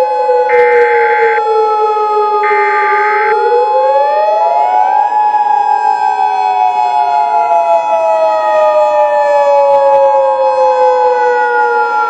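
Several sirens wailing together, their pitches sliding slowly up and down, over a steady alert tone. About four seconds in, a second, slightly higher tone joins it, forming the two-tone Emergency Alert System attention signal. Two short buzzing pulses sound in the first three seconds.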